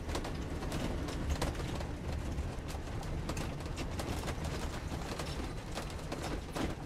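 Inside the cab of a motorhome on the move: a steady low rumble of engine and road, with irregular clicks and rattles scattered through it.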